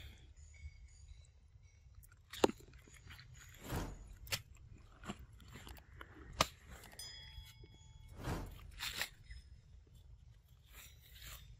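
Macaque biting and chewing ripe mango close up: scattered sharp wet clicks and short smacking bursts, a few seconds apart.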